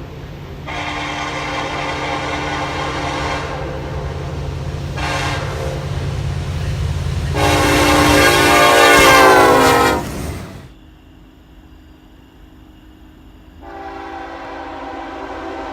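Diesel freight locomotive air horn sounding several blasts over the low rumble of the passing train, the last and loudest blast lasting about two and a half seconds. After a sudden drop, another train horn starts up more faintly near the end.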